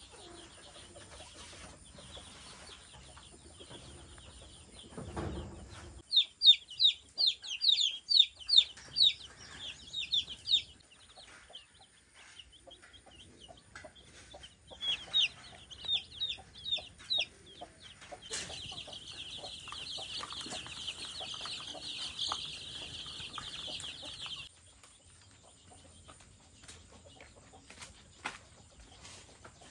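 A flock of young chicks peeping. Runs of sharp, high single peeps come from about six to ten seconds in and again around fifteen seconds, then many chicks peep together in a dense, steady chorus for about six seconds that starts and stops abruptly.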